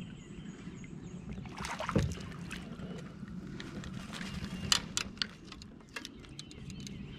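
Scattered clicks and knocks of a fishing rod and a small fish just lifted from the water, bumping against a plastic Jackson Bite sit-on-top kayak. There is a heavier knock about two seconds in and a run of sharp taps around the five-second mark.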